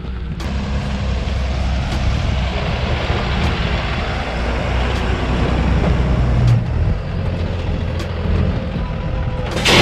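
Diesel box truck drives slowly down a dirt driveway and past close by, its engine running low and steady over tyre noise on the dirt. A short, loud burst of sound comes just before the end.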